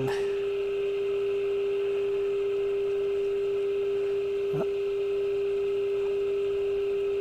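Steady single-pitch test tone from the speaker of a Zenith vacuum-tube AM clock radio, produced by the modulated 455 kHz IF signal fed into its antenna while the IF transformer is being peaked during alignment.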